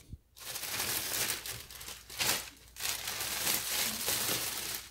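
Clear plastic bag crinkling as it is pulled off a portable speaker by hand. It starts about half a second in and comes in several swells.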